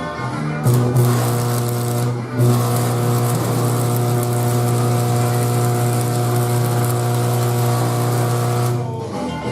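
A power tool running with a steady hum and hiss. It starts about a second in, breaks off briefly around two seconds, then runs on until just before the end.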